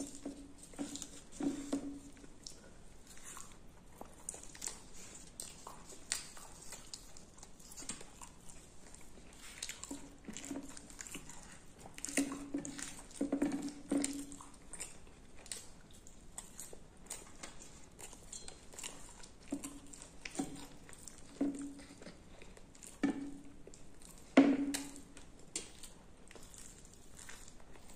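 Close-miked chewing of puri and potato curry: wet mouth clicks and smacks, with spells of louder chewing now and then, the loudest about 24 seconds in.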